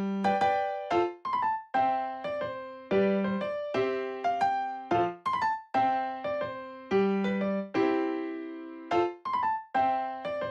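Light background music on piano or electric piano: single notes and chords struck a few times a second, each fading before the next.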